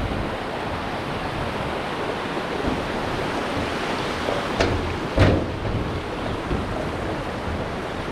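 Steady rushing of a stream's water, with two short knocks about halfway through.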